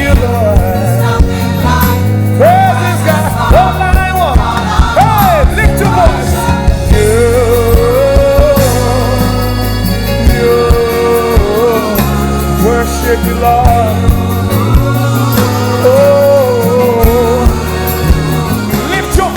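Live gospel worship band music. A sliding, bending melody line plays over held chords that change every few seconds, with no words sung.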